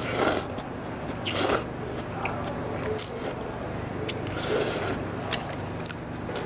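Noodles being slurped from a bowl of spicy jjamppong (Korean-Chinese seafood noodle soup) in several short noisy pulls: one at the start, one about a second and a half in, and a longer one about four and a half seconds in, with a few light clicks between them.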